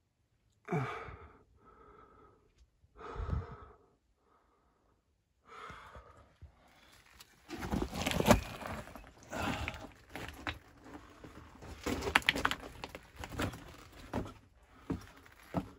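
A person breathing hard in several separate gasps and sighs. From about seven seconds in, this gives way to footsteps scrambling over loose rock rubble, with many sharp knocks of rock shifting underfoot.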